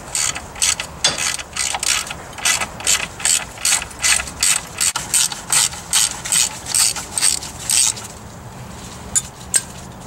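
Socket ratchet being swung back and forth to loosen a front brake caliper bolt: quick, even ratcheting strokes, about three a second, that stop about two seconds before the end, followed by two last clicks.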